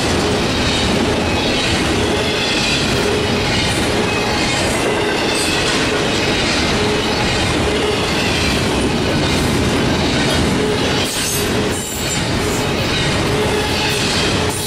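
A double-stack intermodal freight train of container well cars rolls past close by. It makes a loud, steady rumble of steel wheels on rail, with a short dip and a few sharp clicks near the end.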